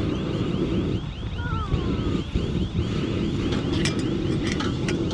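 Wind buffeting the microphone, a steady low rumble. Behind it a faint high chirp repeats about four times a second, and a short falling whistle sounds about a second and a half in.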